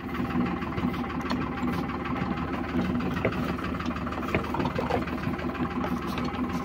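Tractor diesel engine running steadily at low revs, with a few light clicks over it.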